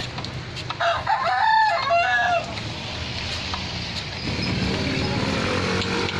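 A rooster crows once, about a second in, a wavering call lasting about a second and a half, over a steady low hum.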